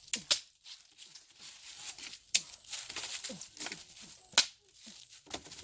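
Dry vegetation rustling and crackling as it is handled, with several sharp snaps and a few short, low calls that drop in pitch.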